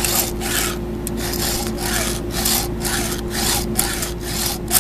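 Round 7/32-inch file rasping back and forth across a dull chainsaw chain's cutter in a Granberg bar-mount sharpener, about two to three even strokes a second, pressed harder on the forward stroke than on the pull back.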